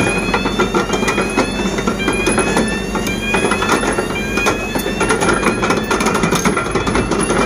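Zoomlion ZCC550 crawler crane travelling on its steel tracks: the tracks clank and give short rising squeaks that repeat about twice a second, over the steady running of its diesel engine.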